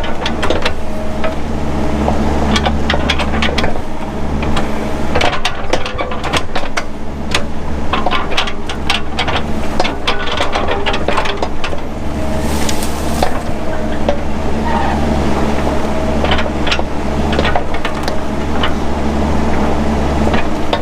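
Mini excavator's diesel engine running steadily under load, with many sharp cracks and snaps from brush and branches breaking as it clears underbrush.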